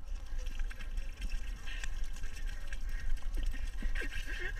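Water poured from a bottle, splashing and trickling over a person's face and head, with a steady spatter of small drops.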